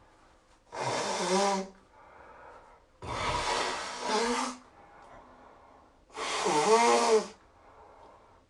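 A person blowing their nose hard three times, each long blow ending in a loud, wavering honk, with quieter breaths drawn in between.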